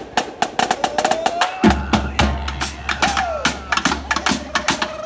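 Marching drumline playing a cadence: rapid snare and tenor drum strokes, with bass drum hits coming in about a second and a half in.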